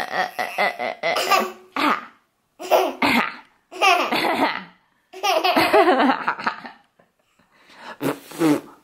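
A baby laughing in about five bursts, with short breaks between them.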